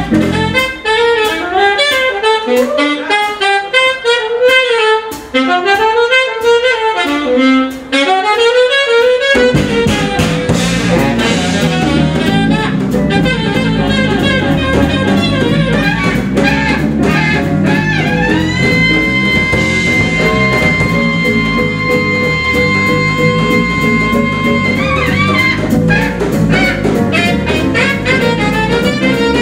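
Live small-group jazz: saxophones, guitar, double bass and drum kit. For about the first nine seconds a saxophone runs a fast line over the drums with no bass under it. The bass and the rest of the band then come in, and later the saxophone holds one long high note for about six seconds.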